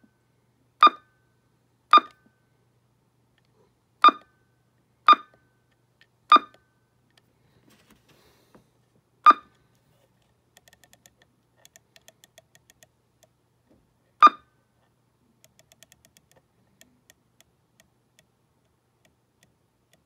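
Icom IC-207H transceiver key beeps: short, high confirmation beeps as its front-panel buttons are pressed, seven times at uneven intervals, with faint rapid ticking in between.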